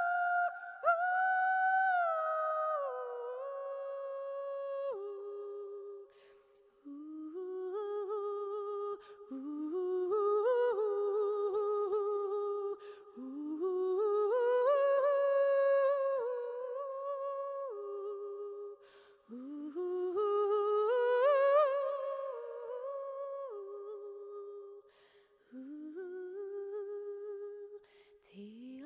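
A solo voice singing a wordless melody. The phrases open with a rising slide and then hold and step between notes, with short breaks between them.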